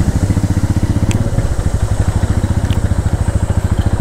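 Royal Enfield Meteor 350's single-cylinder engine running with a steady, even beat.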